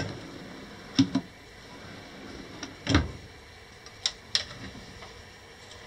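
A wooden drawer under a camper's oven slid open and pushed shut: a click, a pair of knocks about a second in, and a deeper thump about three seconds in. Two light clicks follow as the oven door is handled.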